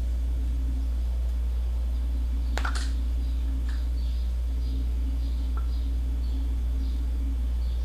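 Steady low hum with a sharp click about two and a half seconds in and a couple of faint ticks, as hands work plumber's tape onto a small threaded gas fitting.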